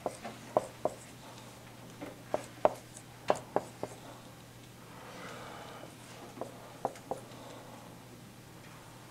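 Dry-erase marker writing numbers on a whiteboard: sharp taps of the tip against the board in quick clusters, with a softer stretch of marker rubbing about five seconds in.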